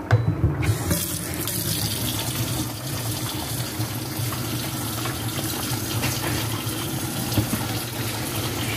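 Curry beef stew boiling hard in a large pot on the stove, a steady bubbling with a low hum under it. A brief bump right at the start.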